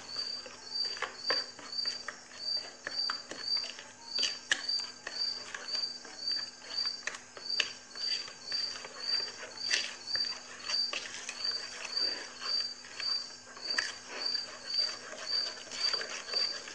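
Wire whisk beating a thick mayonnaise-and-cream dressing in a glass bowl, with scattered clicks and scrapes of the wires against the glass. A cricket-like high chirp repeats evenly about twice a second.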